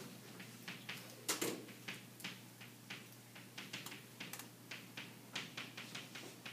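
Chalk tapping and scratching on a chalkboard as words are written: a faint, quick, irregular run of clicks, with one louder knock just over a second in.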